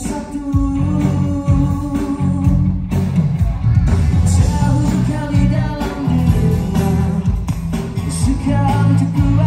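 A man singing a pop-rock song into a microphone over band music with a heavy bass line and a steady drum beat.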